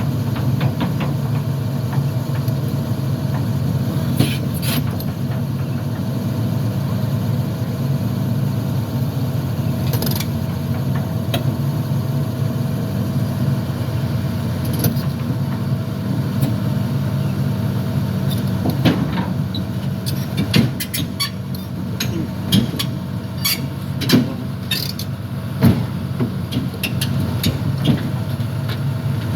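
Heavy diesel engine running steadily, with scattered sharp knocks and clanks that come thicker in the second half.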